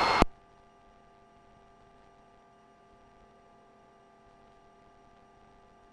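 A police radio transmission cuts off abruptly a moment in, leaving near silence with only a faint steady electrical hum.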